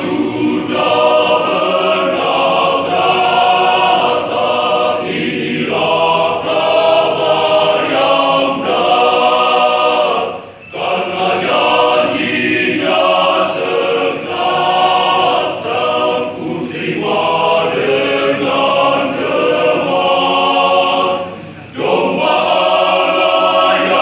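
Men's choir singing together, led by a conductor, breaking off briefly about ten seconds in and again near the end.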